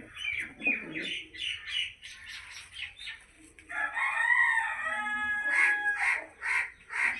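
Birds calling: a run of short chirping notes, then one long pitched call of about a second and a half starting about four seconds in, followed by a few short repeated calls.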